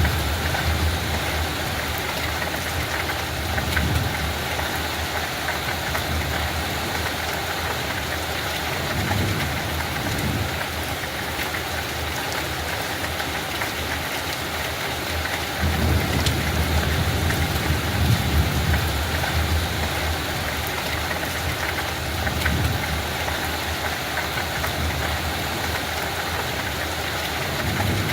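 Steady light rain falling on a field, a continuous even hiss, with low rumbles that swell and fade every few seconds.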